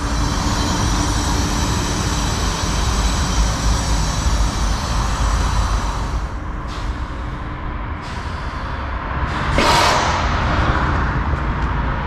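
Hydrogen pump hissing as it fills a Toyota Mirai's 700-bar tank: a steady hiss with high whistling tones that thins out about six seconds in. About ten seconds in, a sudden loud burst of rushing noise from across the station lasts about a second; it is startling enough to be taken for an explosion.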